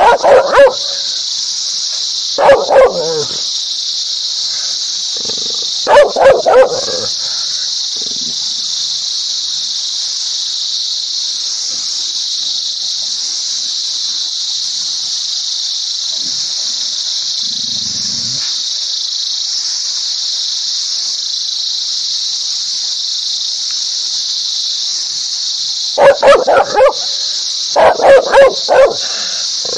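A dog barking angrily in short volleys of two to four barks: a few near the start, then a long gap in the middle, then more barking near the end. A steady high-pitched hiss runs underneath.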